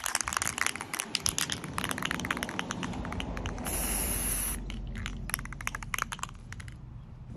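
Aerosol can of Rust-Oleum automotive primer being shaken, its mixing ball rattling in quick clicks. About halfway through, a hissing spray burst of about a second, then more rattling as the can is shaken again.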